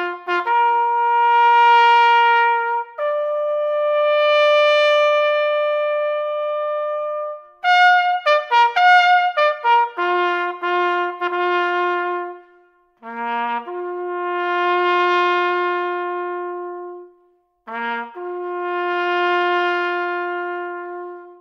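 Solo trumpet playing a slow, mournful bugle call on the natural notes of the horn: long held notes, a quick run of short notes about eight to ten seconds in, then short low notes leading into long held ones near the end.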